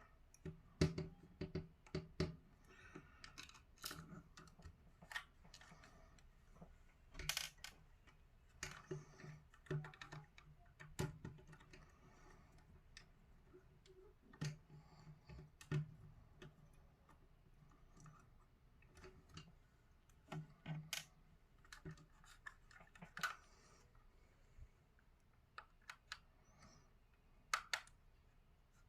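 Faint, scattered clicks, taps and scrapes of a precision screwdriver and fingers working on a PS5 controller's plastic shell as its four small screws are taken out.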